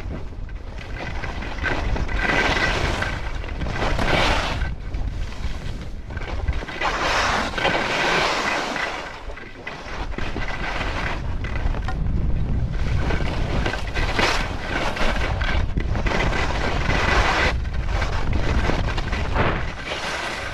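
Wind buffeting the microphone of a camera carried by a downhill skier, a steady deep rumble, with the hiss of skis sliding and carving over packed snow swelling and fading several times.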